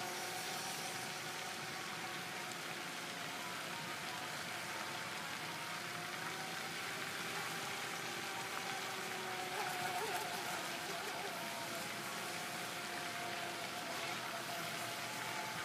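Steady splashing hiss of a pond fountain, with the thin whine of the Atomik Barbwire RC boat's electric motor and prop running out on the water, throttle limited to 75%. The whine swells a little about ten seconds in.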